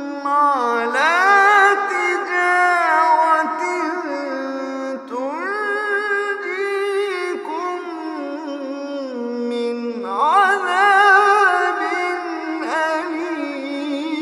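A man reciting the Quran in melodic tajwid style: one voice chanting long held, ornamented notes whose pitch slides up and down, with brief pauses between phrases.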